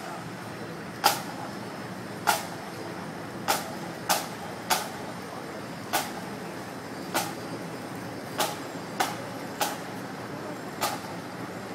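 Sharp drum taps beat a slow marching cadence, about one every second and a bit, with a quick extra tap or two now and then. A steady low murmur of onlookers runs underneath.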